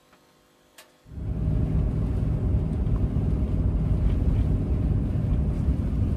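Near silence with a single click, then about a second in a loud, steady low rumble starts abruptly.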